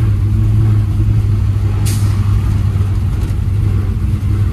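1957 Chevrolet's freshly built V8 and exhaust droning steadily under way, heard from inside the cabin. A short hiss cuts in about two seconds in.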